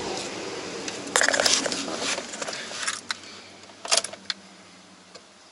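Someone getting into a car's driver seat: rustling and handling noise with keys jangling, the loudest clatter about a second in and a shorter burst of clicks near four seconds.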